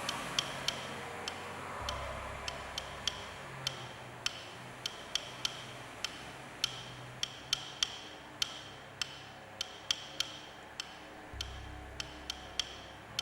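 Clock-like ticking, sharp clicks about two to three a second, over a soft hiss and faint low sustained tones.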